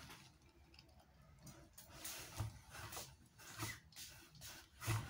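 Pump-spray bottle of keratin hair spray spritzed several times onto hair, a series of short faint hisses with soft handling bumps.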